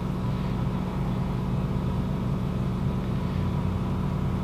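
A steady low machine hum with several pitched tones, unchanging throughout.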